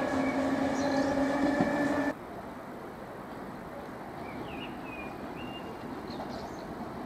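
Approaching electric locomotive running with a steady multi-tone hum. It is cut off abruptly about two seconds in, leaving quieter station background noise with a few short high chirps near the middle.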